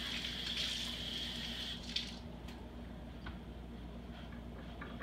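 Kitchen sink tap running while hands are washed under it, shut off about two seconds in with a click; a few faint clicks follow.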